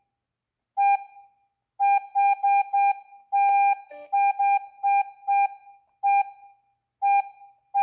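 Keypad beeps from a G90B Plus alarm panel as its buttons are pressed to work through the Wi-Fi menu: about a dozen short, identical beeps at uneven spacing, with one longer beep about three and a half seconds in.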